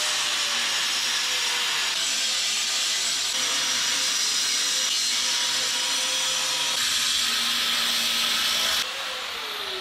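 Angle grinder with a cutoff wheel cutting through the rusted steel ladder rack, a loud steady hissing grind over a faint motor whine. About nine seconds in the cut ends and the grinder winds down, its whine falling in pitch.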